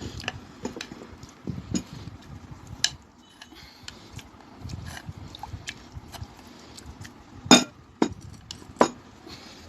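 Kitchen dishes and utensils being handled, giving scattered clinks and light knocks. The loudest two come about a second apart near the end.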